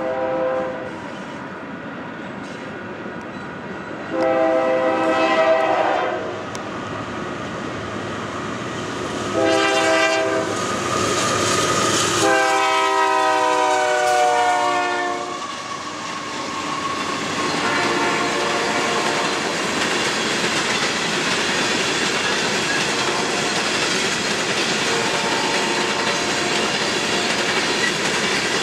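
Union Pacific coal train's locomotive horn blowing the long-long-short-long grade-crossing signal: a long blast, a short one, then a final long blast whose pitch drops as the locomotive passes. After that comes the steady noise of the coal cars rolling past, with a fainter horn further off.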